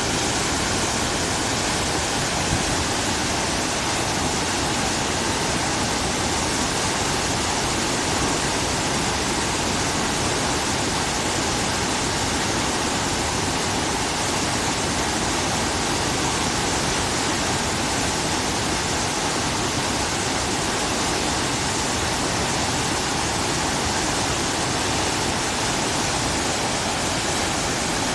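A river in flood, swollen by typhoon rain, rushing past in a loud, steady wash of water noise.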